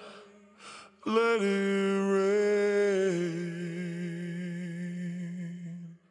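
After a short pause and a brief hiss, a male a cappella voice sings a long closing note without words. The note steps down in pitch about two seconds in and cuts off just before the end.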